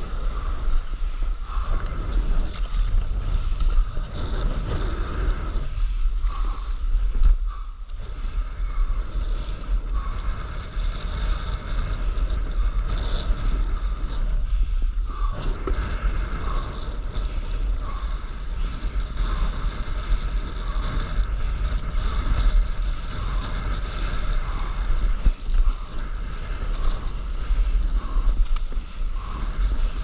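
Wind buffeting the microphone of an action camera held just above rough sea, giving a deep steady rumble, mixed with choppy waves splashing and sloshing around a stand-up paddleboard.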